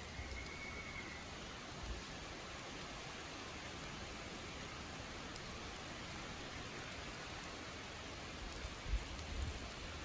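Steady, even hiss of forest ambience with a single short high whistled note just after the start. There are a few low bumps, the loudest near the end.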